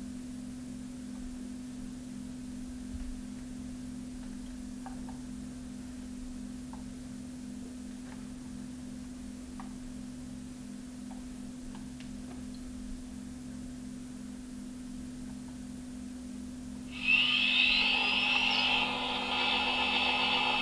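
A Trix BR 44 model steam locomotive's sound decoder plays a standing-locomotive background of a steady low hum with a slow regular pulse, through the model's small speaker. About 17 seconds in, the turbo-generator (Lichtmaschine) sound starts: a whine that rises in pitch, then holds as a steady high whine.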